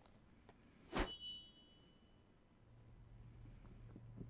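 A single sharp knock about a second in, with a brief high ringing tone after it, then a faint low hum fading in near the end.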